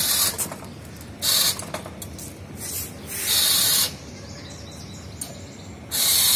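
Electric drive motors of a joystick-controlled motorized wheelchair whirring in short bursts as the chair is steered, a high hissing whir heard four times, the last burst the longest.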